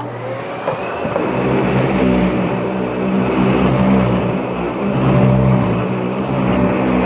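Upright vacuum cleaner starting up and then running loudly: a steady motor hum with rushing air.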